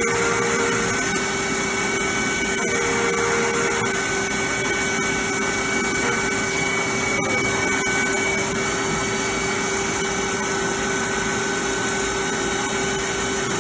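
CNC milling machine's end mill cutting steel vise jaws under flood coolant: a steady cutting tone over the hiss of coolant spray and flying chips.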